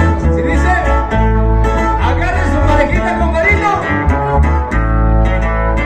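Live band music played through a PA: an electric bass holding a deep, steady bass line under acoustic guitars playing melody runs and chords.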